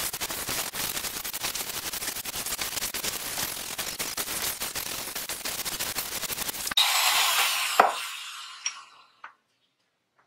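Angle grinder with a thin cutting disc cutting into a metal piece clamped in a bench vise: a harsh, crackling grind. About two-thirds of the way in, the disc comes free of the metal and runs louder and higher, there is a clank, and the grinder winds down to silence.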